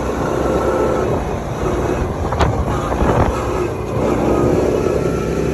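A steady rumbling noise with wind buffeting the microphone.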